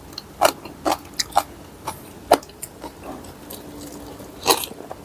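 Pestle striking in a mortar while pounding papaya salad: about six sharp, separate knocks at uneven intervals, roughly two a second at first and then a gap before a last knock near the end.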